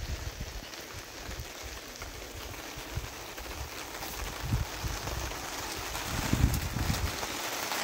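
Rain falling steadily, with wind gusting on the microphone in low rumbles now and then, strongest about six to seven seconds in.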